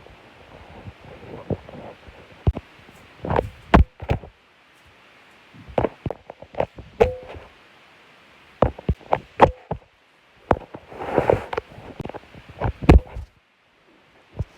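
Fall sound effects: a series of sharp thuds and knocks of a body hitting the floor, coming in clusters separated by short pauses. One hit about halfway through leaves a brief ringing tone.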